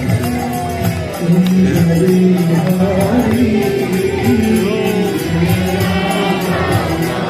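Devotional chanting: voices singing a kirtan-style mantra over a steady jingling percussion beat.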